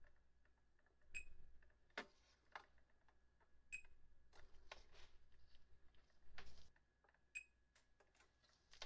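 Faint, irregular clicks and taps of multimeter probe tips touching parts and solder joints on a circuit board while components are measured, about a dozen ticks spaced unevenly.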